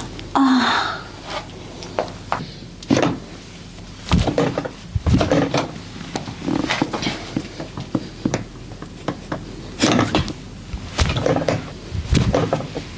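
Hands working a person over during a crack massage: a run of irregular sharp clicks, pops and slaps with rubbing and handling noise between them.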